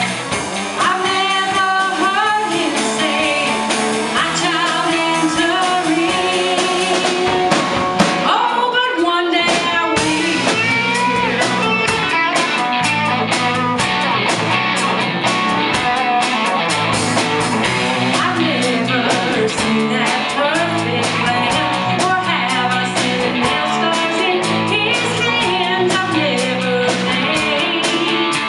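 A vocal group singing a rock-style song, backed by guitar and a steady drum beat. About eight seconds in there is a brief break with a crash before the beat drives on.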